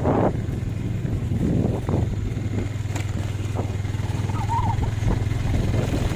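Engine running steadily with a low, even hum, with a few short knocks and rustles over it.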